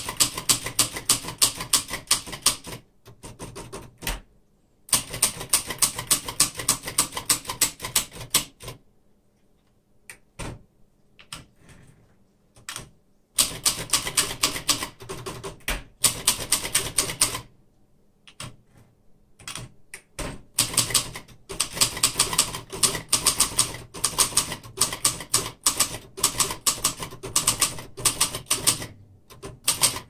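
Japanese-made 1960s Royal Mercury portable manual typewriter being typed on quickly, its keys and typebars clacking against the platen in fast runs broken by short pauses.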